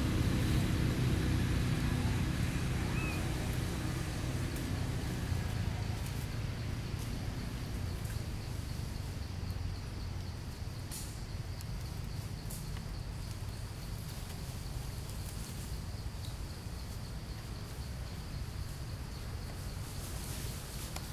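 Steady low outdoor rumble in a forest, a little louder in the first half, with a faint high, steady insect drone behind it.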